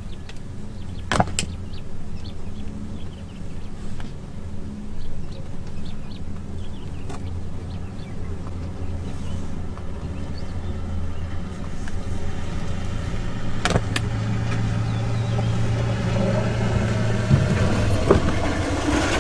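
Vehicle engine idling steadily, with a sharp click about a second in and another about three-quarters of the way through.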